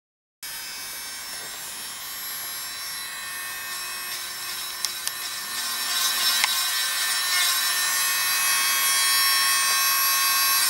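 Electric podiatry nail drill with a smoothing bur running against a toenail, filing cut nail edges smooth. It makes a steady high whine that starts about half a second in and grows louder, with a few faint clicks near the middle.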